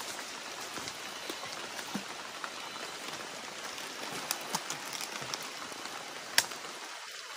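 Steady rain hiss with scattered sharp drop ticks. One louder tick comes about six seconds in.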